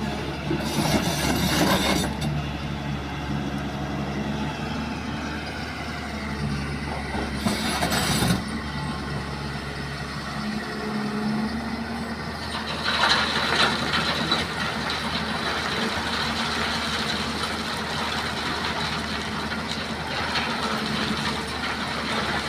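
Hyundai excavator's diesel engine running steadily, with short bursts of hissing noise about a second in and again near eight seconds, and a longer rougher noisy stretch around thirteen seconds, as the machine works.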